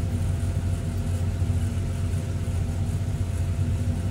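Sumitomo hydraulic excavator's diesel engine running steadily at low speed, heard from the operator's seat.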